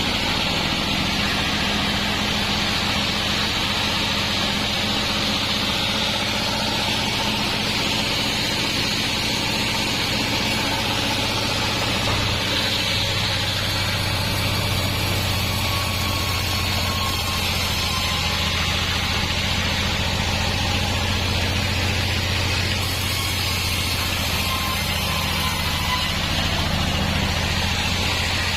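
Sawmill band saw and its engine running steadily, a low engine hum under a steady hiss. The hum grows a little stronger about twelve seconds in.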